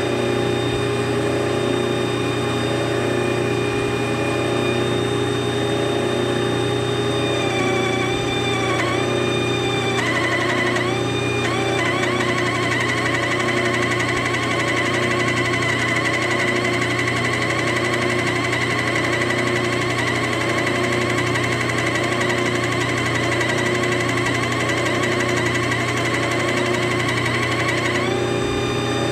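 A small pencil grinder whining at high speed, mounted in a lathe's tool post, over the steady hum of the lathe with its chuck spinning. About a third of the way in its pitch dips several times as the disc touches the turning workpiece, then a rough grinding rasp rides over the whine until shortly before the end, when it clears back to the steady whine. The grinding is done with a used disc that has aluminium stuck in it.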